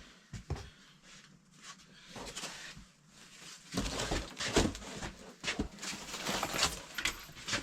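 Rustling and crinkling of cardboard and plastic packaging being handled, with scattered light clicks at first and much busier, louder handling from about four seconds in.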